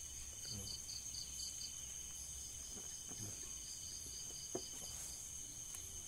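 Crickets chirping: a steady high trill, with short runs of quick chirps at about five a second. A few faint soft knocks sound underneath.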